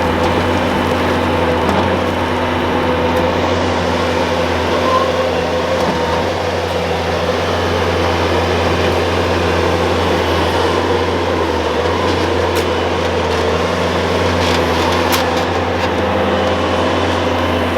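An engine running steadily, a loud continuous drone with a low hum and no change in pace.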